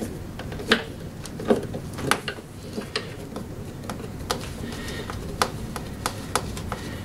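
Crosshead screwdriver backing a small screw out of a plastic belt guard on a lawn mower deck: scattered light clicks and taps, about one a second.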